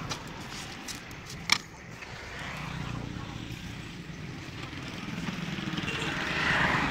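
Street traffic going by, with a vehicle getting louder near the end. A sharp click about a second and a half in, as bamboo skewers are worked through pork held in a wire grill rack.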